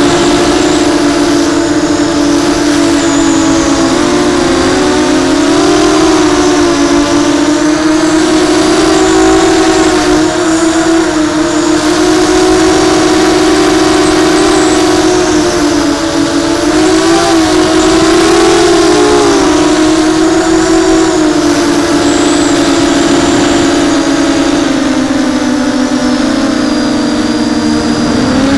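Brushless motors and 6-inch props of a Ridgeback 280 FPV racing quadcopter, heard up close from its onboard camera: a loud, steady whine that rises and falls in pitch with the throttle, dropping lower near the end.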